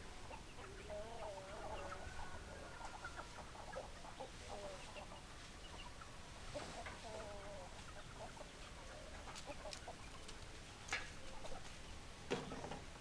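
Chickens clucking softly in short wavering calls, thinning out after about seven seconds, with a few sharp taps near the end.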